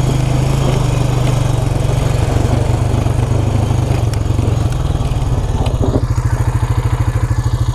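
Small off-road vehicle engine running steadily, then settling about six seconds in to an idle with even, regular pulses.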